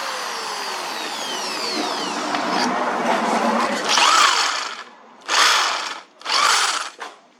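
Electric drill boring into plate steel, its pitch sliding down over the first couple of seconds, then louder before two short trigger bursts about a second apart near the end.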